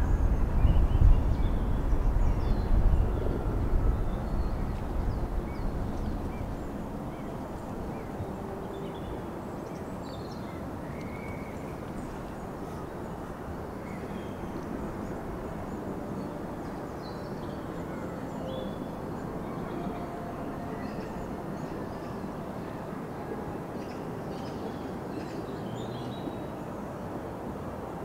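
Lakeside park ambience: small birds chirping now and then over a steady background hum. A loud low rumble fills the first few seconds and fades out about six seconds in.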